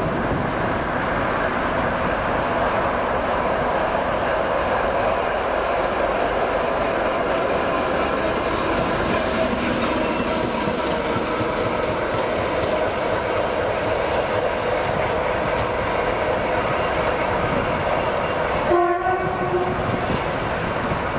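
ChME3 diesel shunting locomotive running light past at close range, its diesel engine running steadily over the rumble and clatter of its wheels on the rails. About nineteen seconds in, a horn sounds briefly.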